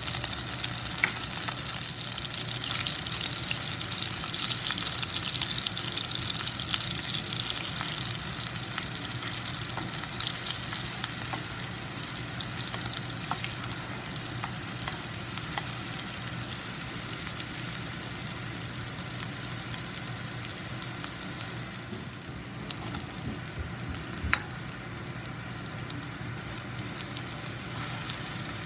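Food sizzling as it fries in a pan while being stirred, with small clicks of a utensil against the pan and one sharper click near the end. The sizzle is loudest for the first several seconds, then settles to a quieter steady frying.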